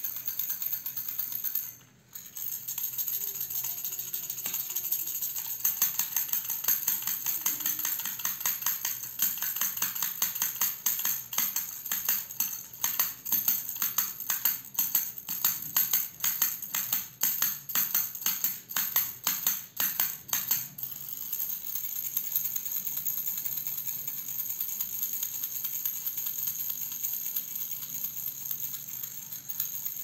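Red plastic fish-shaped baby rattle shaken by hand, the small beads in its clear plastic ring rattling. There is a brief pause about two seconds in, a run of sharp, regular shakes in the middle, and then a steadier rattle.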